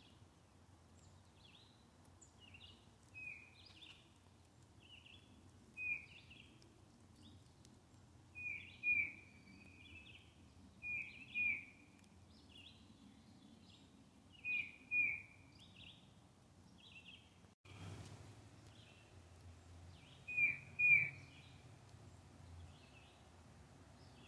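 A bird calling repeatedly, short slurred notes mostly in quick pairs every couple of seconds, over a faint steady background hum.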